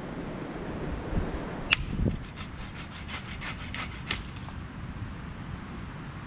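A sharp click, then a hand saw cutting deadwood in quick strokes, about five a second, stopping after about two seconds.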